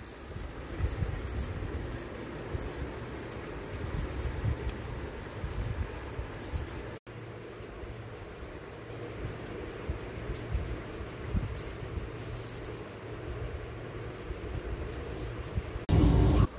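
Small bell on a feather wand cat toy jingling in irregular bursts as the toy is shaken, over low handling rumble. Near the end a brief loud rush of noise.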